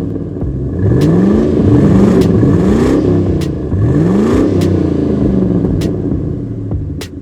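Cartoon vehicle engine revving sound effect, rising in pitch four times in quick succession.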